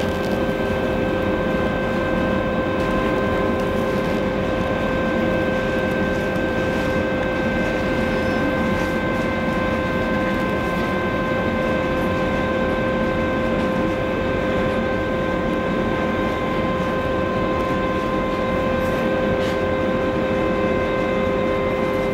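Large cruise ferry's engines and machinery running as it moves off, a steady drone with a constant humming tone over it.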